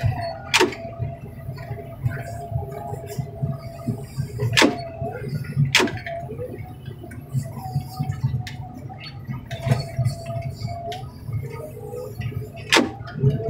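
Heavy diesel equipment running with a steady low rumble and a whine that comes and goes, while scrap truck-cab metal gives about five sharp clanks.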